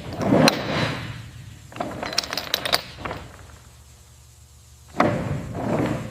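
Crane rigging being worked: three bursts of metallic clanking and scraping over a steady low machinery hum as the hook block is lowered.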